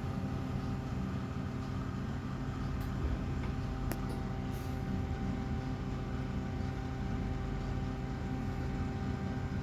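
Midea front-load washing machine running with a load, its drum motor humming steadily on two freshly replaced carbon brushes and working normally. A single sharp click comes about four seconds in.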